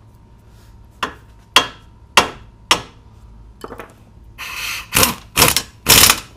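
Four sharp, ringing hammer blows on steel front-suspension parts, about half a second apart, followed near the end by several short bursts of an impact wrench running in suspension bolts.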